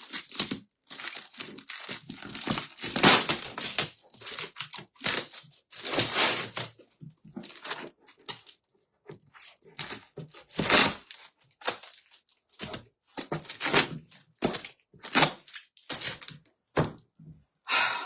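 Cardboard box and sticky tape being torn open by hand: irregular ripping and crinkling in quick bursts with short pauses between.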